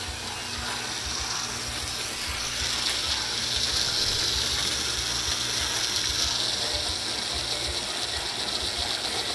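Home-built 2x42 belt grinder running, its belt travelling over 3D-printed plastic wheels and driven by the motor from a 1x30 hobby belt sander. A steady hum sits under a hiss that grows louder about two and a half seconds in.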